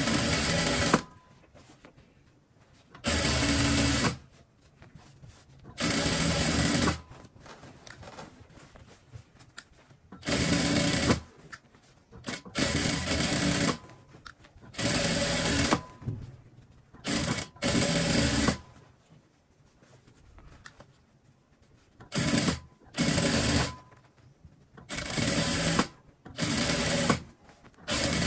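Electric sewing machine stitching in about a dozen short runs of about a second each, stopping and starting with pauses between, as a topstitch is sewn along the zip fly of a pair of trousers.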